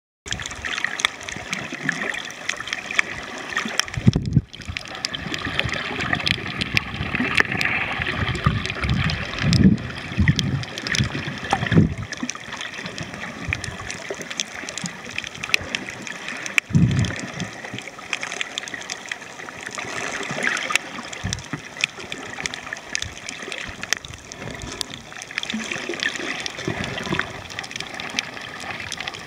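Water heard through an underwater camera: a steady gurgling and sloshing wash with a dense crackle of fine clicks, and a few heavier low surges of water movement.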